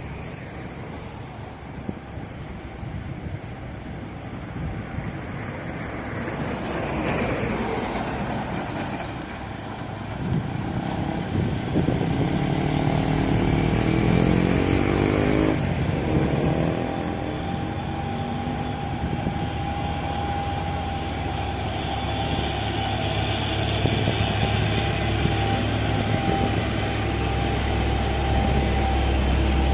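Street traffic with heavy truck engines. Partway through, an engine revs up with its pitch climbing. A steady whine comes in after the middle, and a deep engine rumble grows louder toward the end as a heavy vehicle draws near.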